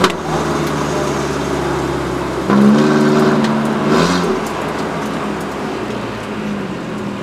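Race car engine heard from inside the cockpit, running steadily through a turn with road and tyre noise. Its note grows louder and stronger for about two seconds partway through, then settles back.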